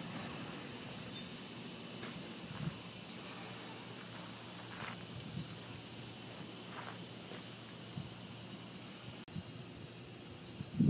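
A steady, high-pitched chorus of insects buzzing without a break.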